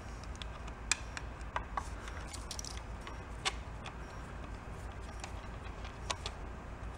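A handful of light, sharp clicks and taps from a screwdriver and a small carburetor float-bowl drain screw being handled, over a steady low hum.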